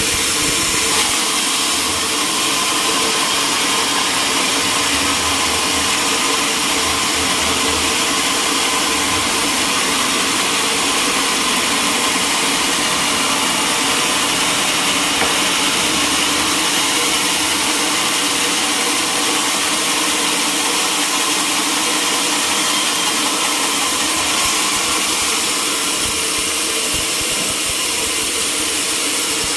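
Sawmill machinery running steadily: a constant, loud mechanical drone with steady tones, unchanged throughout.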